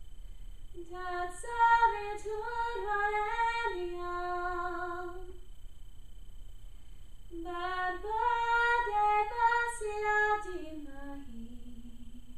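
A woman chanting a Shiva mantra alone and unaccompanied, in two sung phrases with a pause of about two seconds between them. The second phrase falls step by step to a low held note.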